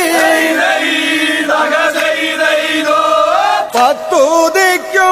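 Background music: chant-like devotional singing, with several voices together at first and then a single voice with ornamented, wavering pitch bends, and a brief break about three and a half seconds in.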